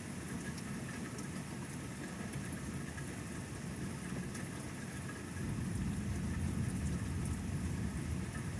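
Rain falling steadily, with a low rumble of thunder that swells about five seconds in and keeps rolling.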